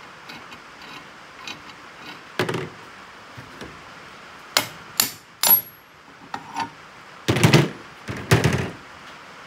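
Steel pins, bolts and nuts from a hydraulic excavator thumb being pulled out and set down on a worktable: a string of separate metal clanks and knocks, one with a short metallic ring, and two heavier clanks near the end that are the loudest.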